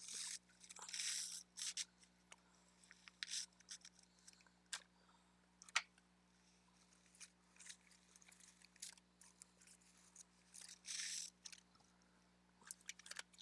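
Intermittent rustling and crinkling of craft supplies and plastic bags being handled, with small clicks and taps between; the longest rustles come near the start and about eleven seconds in.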